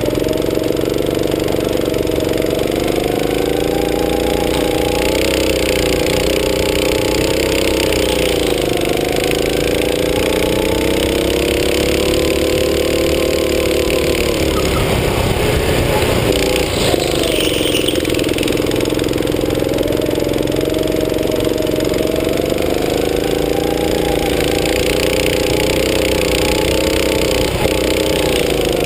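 Go-kart engine running hard, its pitch rising and falling as the throttle opens and closes through the corners. About halfway through, the note fades briefly, then picks up again.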